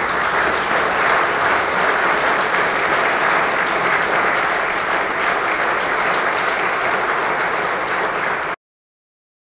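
A congregation of mourners applauding, many hands clapping in a steady, sustained ovation. The sound cuts off suddenly near the end.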